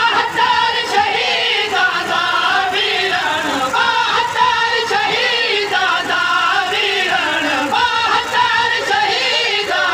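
Men's voices chanting a noha, a Shia mourning lament, in long sung lines that waver up and down in pitch.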